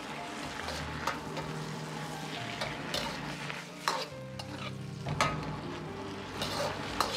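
Bok choy stir-frying in a wok over high heat: steady sizzling, with a metal ladle scraping and clanking against the wok a few times as the greens are tossed.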